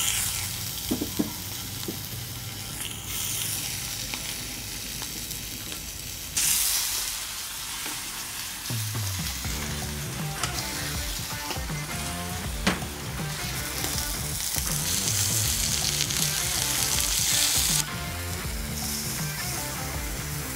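Scallops searing in hot duck fat in a cast iron pan, a steady sizzle that grows louder about six seconds in and drops back near the end. Soft music runs underneath from about nine seconds in.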